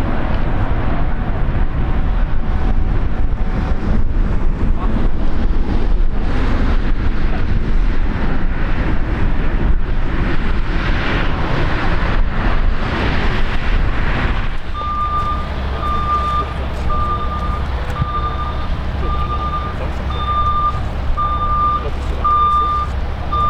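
Loud rushing noise with a deep rumble stops suddenly about two-thirds of the way through. A steady low engine hum takes over, with a vehicle's reversing alarm beeping about once every three-quarters of a second.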